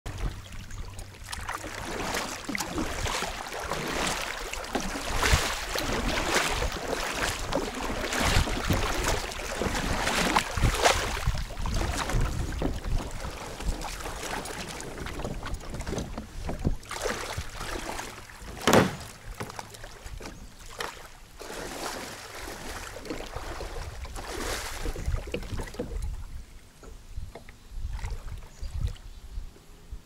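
Water splashing and sloshing around a kayak in irregular bursts, with a low wind rumble on the microphone; one sharper splash or knock about two-thirds of the way in.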